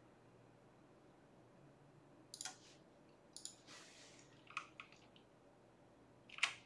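Several quiet, separate clicks at a computer, typical of a mouse and keys, starting about two seconds in and loudest near the end, over faint room hiss.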